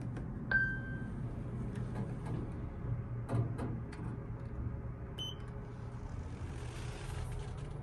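Elevator car running with a steady low hum, with a short electronic beep about half a second in and another a little after five seconds, and a few light knocks around two and three and a half seconds in.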